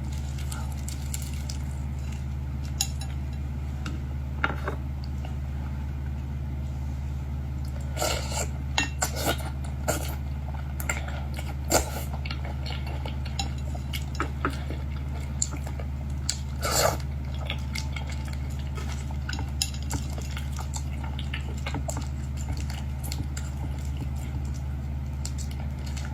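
Eating at a table: scattered clicks and clatter of dishes and cutlery, busiest around the middle, over a steady low hum.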